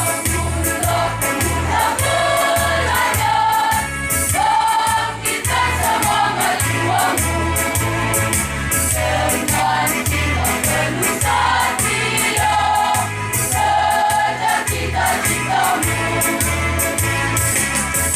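School choir singing a march in several voices over instrumental accompaniment with a steady low beat.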